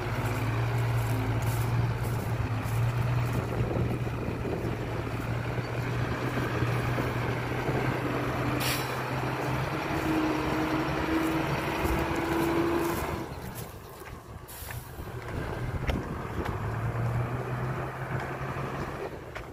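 Dump truck's diesel engine running steadily with a short hiss of air about nine seconds in. The engine sound drops away for a couple of seconds about two-thirds through, then picks up again.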